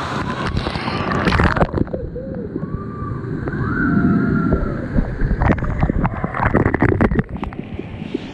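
Water splashing and sloshing, with clusters of sharp crackling splashes about half a second in and again from about five seconds in.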